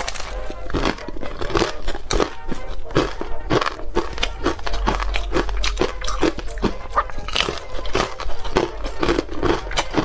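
Close-up crunching of hard ice being bitten and chewed: a rapid, irregular run of sharp crackles and crunches that keeps going.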